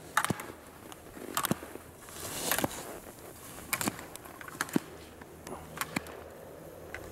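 Slalom gate poles knocked aside by a skier, a sharp knock at each gate about once a second, with the hiss of skis scraping across packed snow on a turn.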